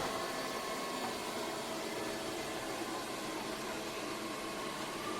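Lefant M210 Pro robot vacuum running steadily: an even hiss from its suction motor with a faint whine on top.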